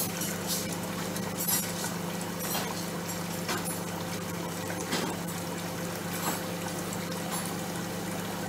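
Washing up at a kitchen sink: water splashing, with dishes and utensils knocking and clinking about once a second, over the steady hum of a microwave oven running.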